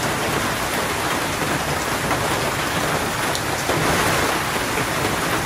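Steady rain falling, an even, unbroken patter.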